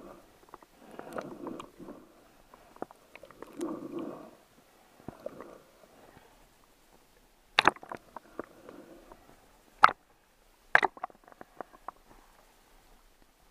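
Muffled gurgling and sloshing of river water around a waterproof action-camera housing at the surface. It swells in a few rumbling surges, then three sharp knocks come in the second half, the loudest sounds here.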